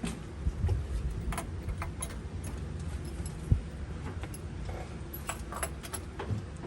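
Scattered light clicks and taps of battery terminal clamps and hardware being handled, with one louder knock about three and a half seconds in, over a low rumble.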